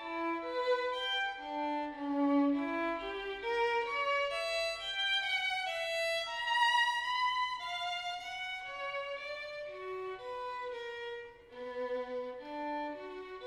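Violin music: a single melody line of held notes stepping up and down.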